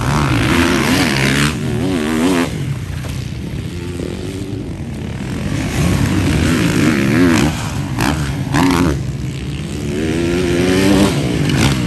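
Several motocross bikes revving hard around a dirt track, their engine pitch rising and falling again and again with the throttle and gear changes.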